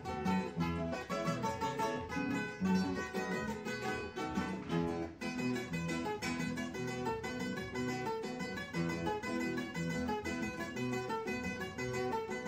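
Three acoustic guitars playing an instrumental passage of a vallenato paseo together, plucked notes over a steady rhythm, with no singing.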